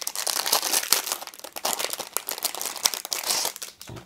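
Clear plastic packaging crinkling as hands pull white plastic sorting trays out of the bag, a dense crackle that dies down near the end.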